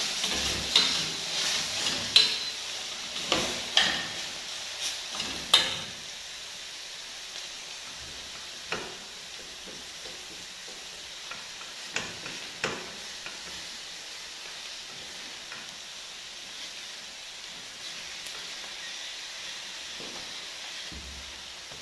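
Cooking spoons clinking and scraping against stainless steel pots, with a quick run of sharp clinks over the first six seconds and then only a few scattered knocks. Underneath is a faint, steady sizzle of food cooking in the pots on the gas stove.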